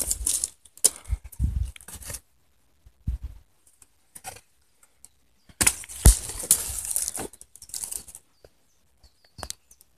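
Crackly rustling of dry leaves and undergrowth on a forest floor, mixed with handling noise from a hand-held phone, in two spells a few seconds apart with near quiet between. A single sharp knock stands out about six seconds in.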